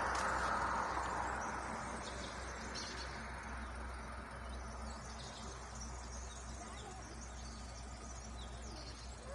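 Small birds chirping in short, high calls scattered throughout. Beneath them, a rushing noise fades away over the first few seconds, and a low steady hum runs on.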